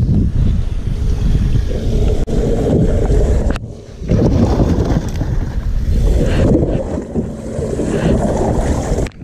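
Loud, muffled rumbling from the body-worn camera's microphone being covered and rubbed while the fish is handled, dipping briefly about three and a half seconds in.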